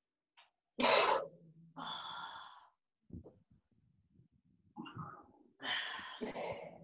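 A man breathing heavily, a series of forceful in- and out-breaths with short gaps between them, the loudest about a second in. He is straining through a painful shoulder mobility drill.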